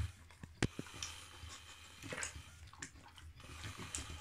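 Old English Bulldog eating from a plastic slow-feeder bowl: irregular crunching and clicking of food against the bowl, with one sharp knock about half a second in.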